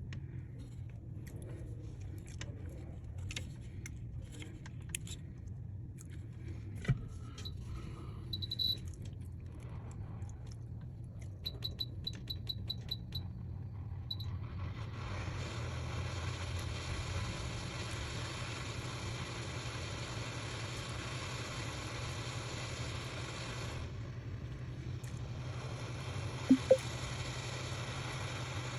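Small clicks and taps of bench tools, then a quick run of short high beeps, like the buttons of a hot air rework station being set, followed about halfway by a steady hiss of hot air blowing that stops briefly and starts again. Two sharp taps near the end, over a low steady hum.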